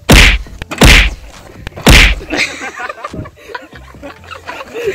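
Three loud, sharp whooshing smacks, each about a second after the last, in the first two seconds, followed by quieter mixed sounds.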